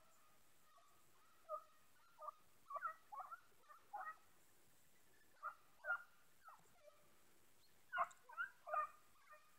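Faint, distant hunting hounds baying on a hare hunt: short pitched yelps, sometimes single and sometimes in quick runs, with a run of about four near the end.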